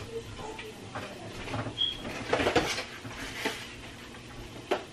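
Rummaging in an open refrigerator: packages rustling and items knocking against the shelves, with a brief high squeak about two seconds in and a sharp knock near the end.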